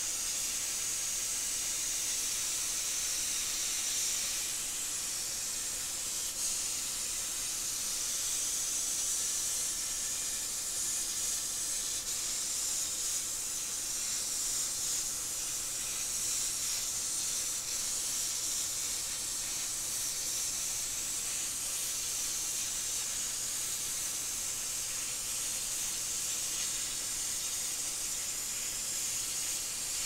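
Plasma cutter arc hissing steadily as a CNC torch cuts 22-gauge sheet steel; an Everlast PowerPlasma 50S running at its lowest setting of 19 amps. The hiss is high and even, with no pauses.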